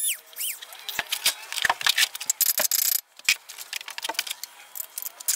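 A Dremel rotary tool's whine cuts off and spins down at the very start. Irregular metallic clicks, taps and rattles follow, from hands and tools working around the steel winch-mount bracket.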